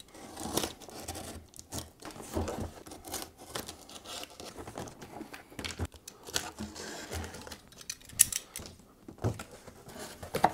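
A shipping package being unwrapped by hand: packing material torn and crinkled, with irregular rustling and small knocks and clicks.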